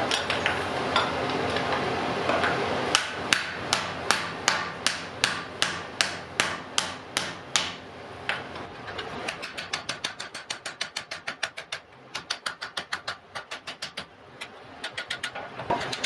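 Hammer blows at the anvil on a hot wrought iron and steel axe head, beginning about three seconds in over a steady rushing noise. A run of heavy, evenly spaced strikes at about two and a half a second is followed, after a short pause, by a longer run of lighter, quicker strikes.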